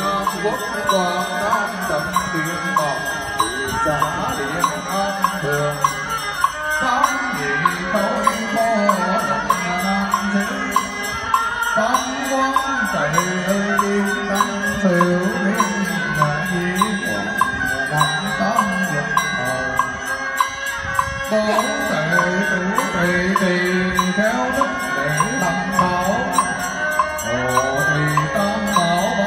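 Buddhist monks chanting sutras in unison, with a wooden fish (mõ) struck in a steady beat beneath the voices.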